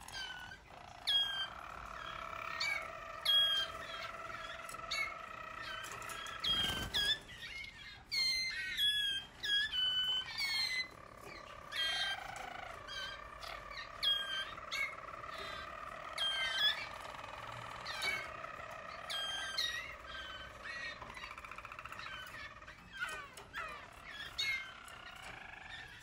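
Male roller canaries calling: short, sharp sweeping chirps every second or so over a steadier, lower run of song. There is a brief thump or flutter about seven seconds in.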